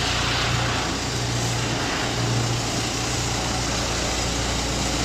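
Diesel engine of a self-loading concrete mixer running steadily during a factory test run, with a constant low drone.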